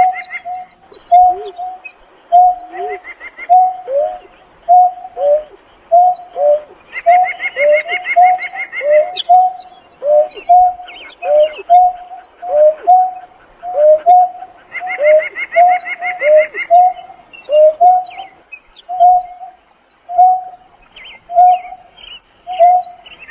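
Greater painted-snipe giving a long, steady series of low hooting calls, with lower notes that slide downward mixed in between. A faster, higher trill from another bird joins twice, about a third of the way in and again past the middle.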